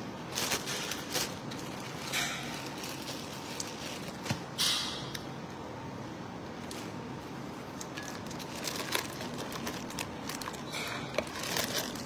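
Eating sounds: chewing and mouth noises, with a few brief crinkles of the thin plastic bags holding the food.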